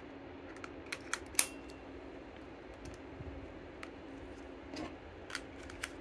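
Plastic clicks and taps as a small camera mount and quick-release parts are handled and snapped together. The loudest is one sharp click with a brief ring about a second and a half in, and a few lighter clicks come near the end. A faint steady hum sits underneath.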